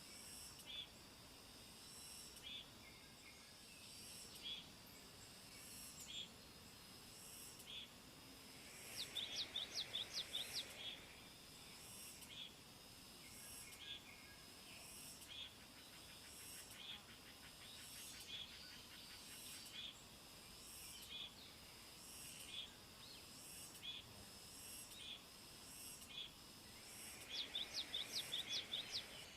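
Forest ambience: a steady high insect drone with short chirps about once a second, and twice a quick run of about eight high bird notes.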